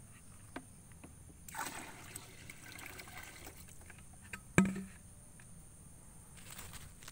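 A plastic bucket is lowered into a coconut palm's crown, scraping and rustling against the frond stalks for a couple of seconds, then set down with one sharp knock a little past halfway.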